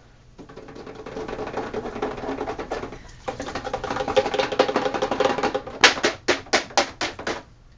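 Plastic beehive foundation sheet being dipped and shaken in a metal bucket of melted beeswax to shed the excess wax: a dense, rapid rattling, then near the end a run of about six sharp taps, roughly four a second.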